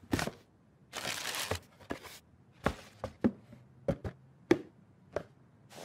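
A brief rustle of tissue paper about a second in. Around it come a string of separate sharp taps and knocks as shoes and a cardboard shoe box and its lid are handled.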